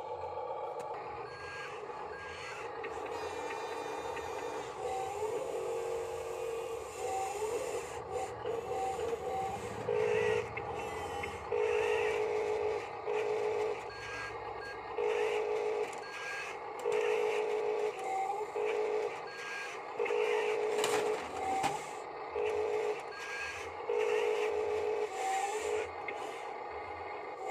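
Small electric motors and gearboxes of RC construction models whining in short, irregular bursts as the controls are worked.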